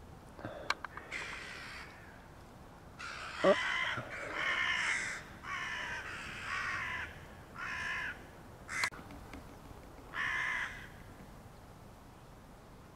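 Crows cawing: a run of about seven harsh caws, some in quick pairs, between about three and eleven seconds in. A single sharp click comes partway through.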